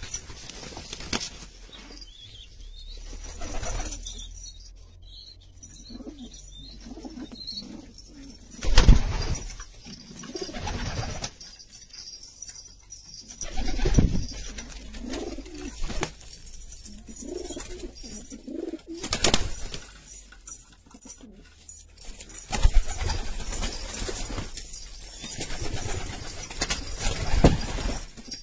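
A flock of domestic pigeons cooing in low, repeated calls, broken by a few sudden louder noises about every five seconds.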